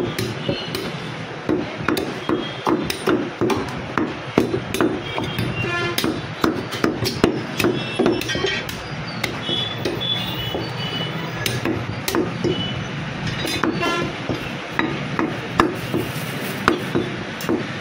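A heavy butcher's cleaver chopping boneless mutton into cubes on a wooden chopping block: rapid, irregular chops, several a second.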